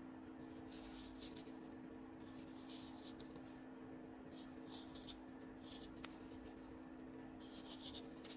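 Faint scraping strokes of a vegetable peeler's blade drawn along a mango's skin, several pulls in a row, over a steady low hum. A single sharp click about six seconds in.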